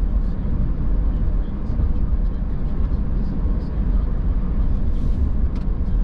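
Car driving on a wet road, heard from inside the cabin: a steady low rumble of tyres and engine, with faint scattered light ticks.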